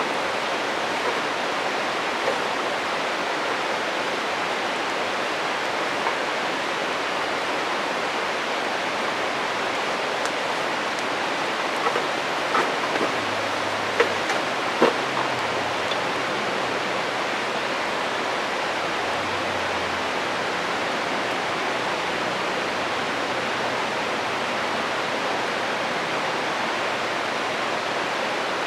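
A stream rushing steadily, with a few sharp crackles and pops from a wood campfire scattered through it, most of them around the middle.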